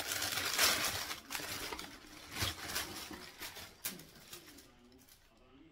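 Crinkly wrapping inside a shoe box rustling and crackling as a sneaker is pulled out of it. It is loudest at the start, with a few sharper crackles, and dies away after about four seconds.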